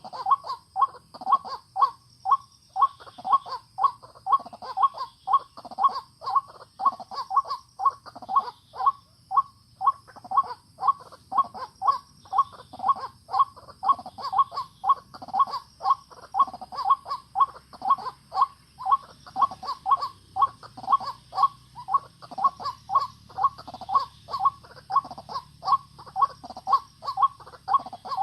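White-breasted waterhen calling over and over, a hollow note repeated about two to three times a second at a steady pace.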